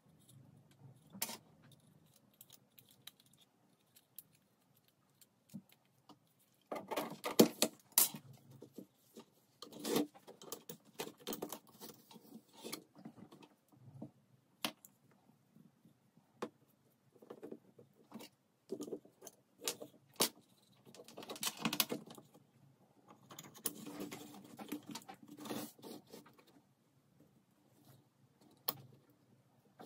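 Irregular light clicks, taps and short scrapes of small hard objects being handled, coming in bunches with short pauses between.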